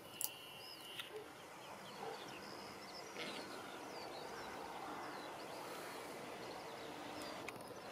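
Faint outdoor field ambience: small birds chirping in short, quick calls over a steady low hiss, the chirps mostly in the first half.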